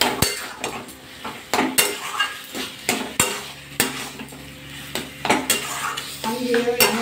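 Metal spatula scraping and knocking against an aluminium kadai in irregular strokes while stirring a thick taro-leaf and coconut mixture, with frying sizzle underneath.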